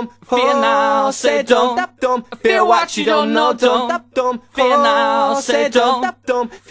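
Music: a sung vocal line, mostly voice with little instrumental backing, with long held notes that waver in pitch and short breaks between phrases.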